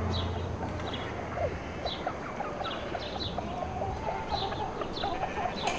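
Farmyard ambience: small birds chirping in short repeated calls, with hens clucking now and then in the second half.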